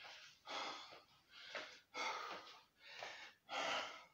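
A man panting hard, breathing in and out quickly and rhythmically, out of breath from a set of burpees.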